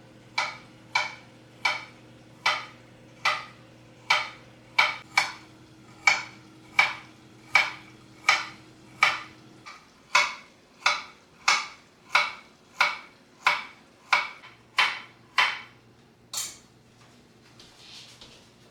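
Kitchen knife cutting down onto a cutting board in slow, even strokes: about twenty sharp knocks, roughly one and a half a second, ending with a last, brighter knock about sixteen seconds in.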